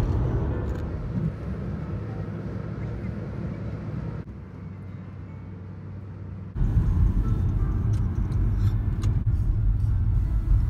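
Road and engine noise inside a moving car's cabin, a steady low rumble. It drops abruptly quieter about four seconds in and jumps back louder a couple of seconds later.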